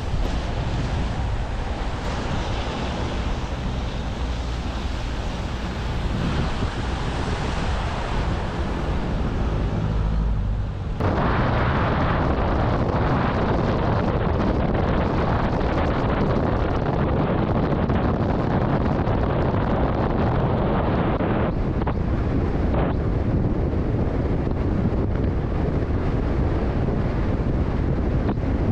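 Wind rushing over the microphone of a moving motorcycle, with low engine and road rumble underneath. About eleven seconds in it suddenly gets louder and fuller, then holds steady.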